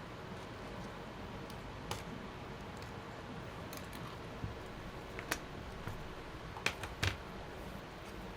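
Scattered light clicks and taps of small hand tools working on a disassembled iPad, a few sharp ones close together near the end, over steady room noise.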